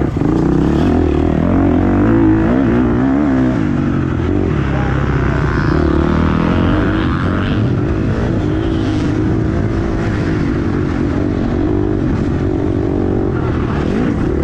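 Motocross bike engine heard from the rider's helmet, revving hard under acceleration, with the pitch climbing and dropping as the throttle opens and closes and the rider gathers speed and then backs off.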